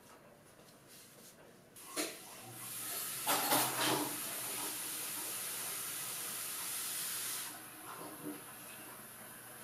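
Water running from a kitchen tap for about five seconds: a steady hissing rush with a low hum, starting about two seconds in after a knock and stopping near the end.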